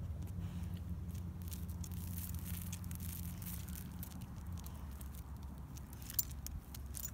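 A dog's footsteps on a concrete sidewalk: scattered light ticks of claws and rustles of dry leaves, with one sharper click about six seconds in, over a steady low rumble.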